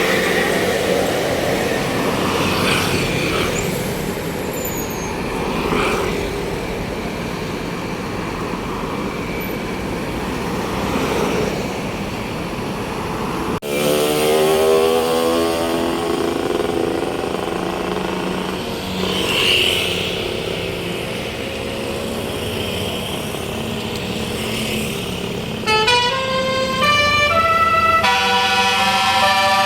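Tour bus engines running with traffic noise; near the end a telolet basuri air horn plays a melody of pitched notes stepping up and down.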